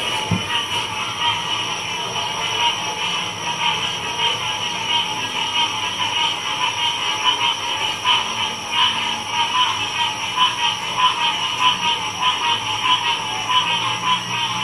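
Dense chorus of frogs calling over one another, a constant mass of fast pulsing calls with no break.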